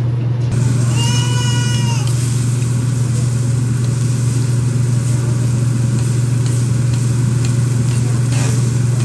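Steady low hum with a hiss over it at a hibachi grill table. About a second in, a brief high-pitched squealing tone lasts about a second.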